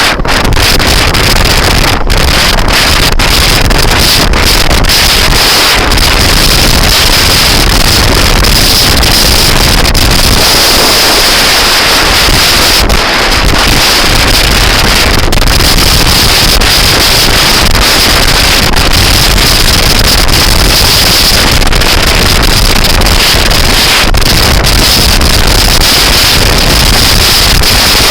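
Loud, steady wind noise buffeting the microphone of a moving scooter, near clipping.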